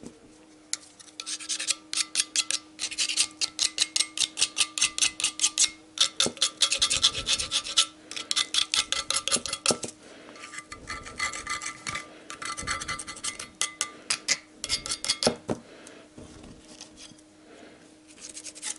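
Hand-sanding the cast-iron exhaust manifold's flange face with sandpaper: rapid back-and-forth rubbing strokes in bursts with short pauses, lighter near the end. The surface that mates with the cylinder head is being smoothed so the gasket will seal.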